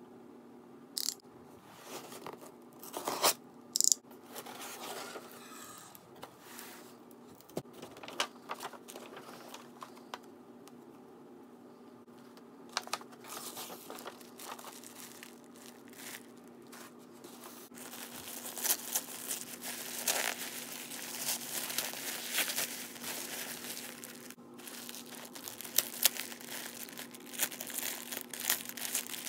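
Cardboard shipping box being cut open with a snap-off utility knife, giving a few sharp clicks and scrapes early on. Then tissue paper rustles, and a clear plastic poly bag crinkles and tears, the crinkling denser and louder in the last third.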